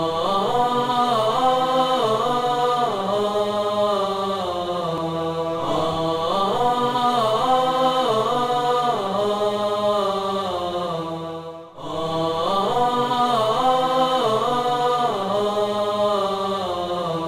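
Intro music of vocal chanting, voices holding long notes that slide gently up and down. It breaks off briefly about twelve seconds in and then starts again.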